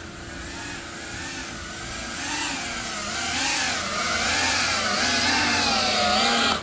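GEPRC Cinelog35 FPV cinewhoop's motors and ducted propellers whining, the pitch wavering up and down with the throttle. It grows louder over the first few seconds and cuts off suddenly at the end.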